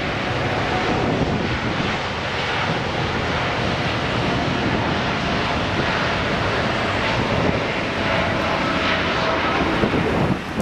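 Boeing 787-9's two GEnx-1B turbofans at takeoff thrust through the takeoff roll and lift-off: a loud, steady jet rush with a faint whine held through it.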